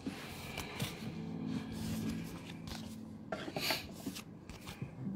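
Pokémon cards and a plastic toploader being slid across and set down on a playmat: light rubbing with a few soft clicks and a brief swish.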